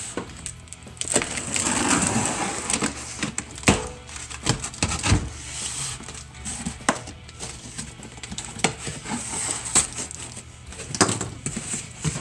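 A knife slitting open a cardboard shipping box, then the cardboard flaps pulled back and handled, with irregular sharp scrapes, cracks and rustles.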